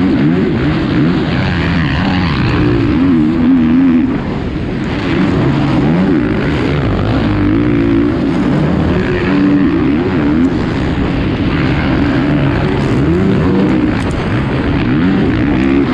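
450cc four-stroke supercross motorcycle engine, heard from on board, revving hard up and down as the throttle opens and closes and gears change, its pitch climbing and dropping every second or two.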